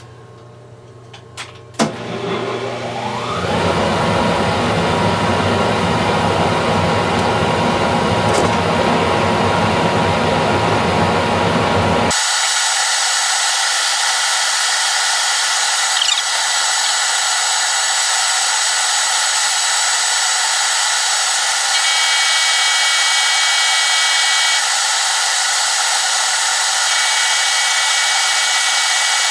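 A metal lathe's motor-generator drive starting with a click and a whine that rises in pitch as it comes up to speed, then running steadily while a steel bar spins in the collet and is turned down. About twelve seconds in the low hum drops out abruptly, leaving a steady high hiss, with two brief higher whines near the end.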